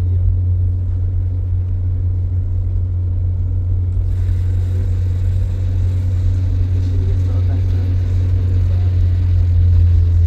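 Car driving, heard from inside the cabin: a steady low engine and road drone, with more tyre and wind hiss from about four seconds in.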